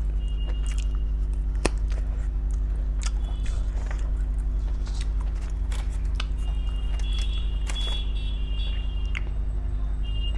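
Close-up eating sounds: chewing with many short wet mouth clicks, over a steady low electrical-type hum that runs underneath throughout.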